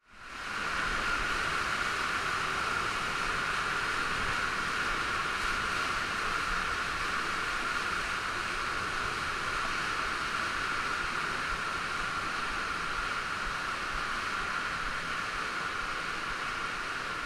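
Steady rushing of water falling through a limestone stream cave, fading in quickly at the start and holding even throughout.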